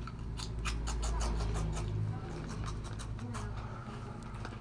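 Crunchy corn chips (Smiths Frazzles) being chewed: a quick, irregular run of crisp crunches that thins out toward the end, over a low rumble.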